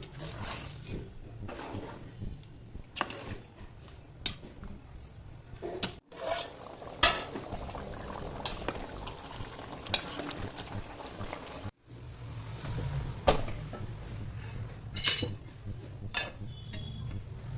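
Metal utensils knocking and scraping against cookware, scattered clinks of a spoon on a pot.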